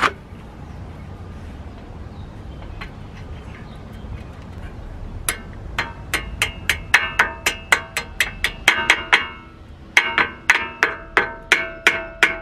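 Hammer tapping the pad pins into a front brake caliper: sharp, ringing metal-on-metal strikes about three a second, in two runs that begin about five and about ten seconds in. A single sharp knock comes right at the start.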